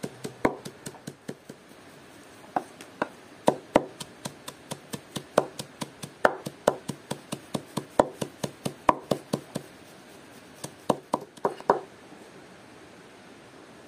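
Knife chopping vegetables on a cutting board: runs of sharp, separate chops at about three to four a second, with a short pause about two seconds in, then stopping near the end.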